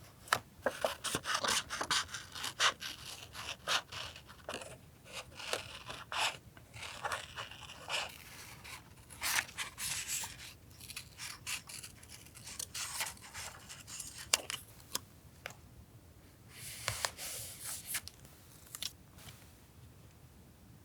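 Paper being handled, rubbed and scraped during journal collage work: irregular rustling and crinkling, quieter near the end.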